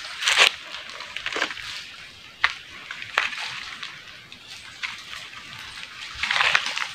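Footsteps crunching through dry leaf litter on a forest path, an irregular run of crisp crunches, loudest just after the start and again near the end.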